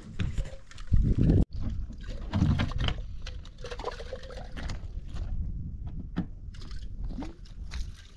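Water sloshing and glugging out of a plastic jerrycan, loudest for about a second and a half before it stops suddenly. Then footsteps and scuffs on loose stony ground, with short knocks of stones.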